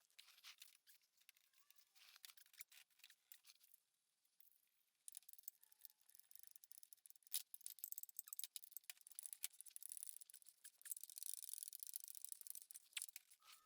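Near silence, with faint scattered clicks and rustles that grow more frequent in the second half.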